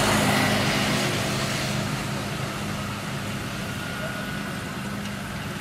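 A motor vehicle engine running steadily with a low hum, gradually getting quieter.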